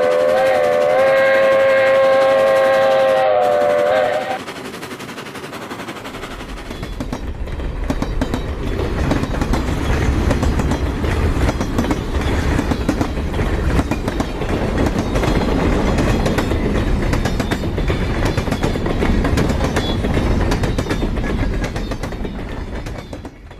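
Steam locomotive whistle held on a steady multi-note chord for about four seconds and then cut off, followed by the rumble and clatter of a train running, building up over a couple of seconds and fading out at the very end.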